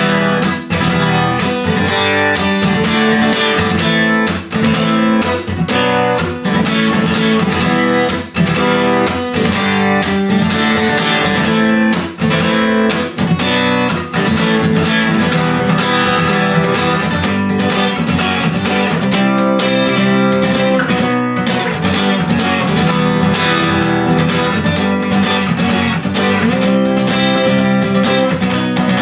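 Acoustic guitar strummed in a steady rhythm, playing a repeating chord pattern with a short break about every four seconds.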